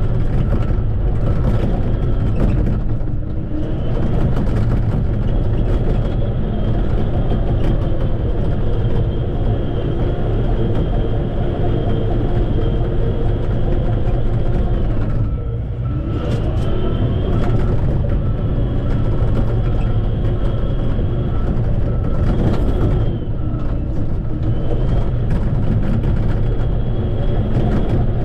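Shantui bulldozer's diesel engine running hard, with a steady high whine over it. The engine note sags briefly and recovers three times as the load changes.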